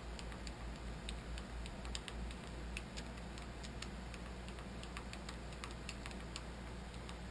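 Light, irregular clicks and taps of metal parts being handled while a milling machine is set up by hand, more frequent in the first few seconds, over a steady low hum.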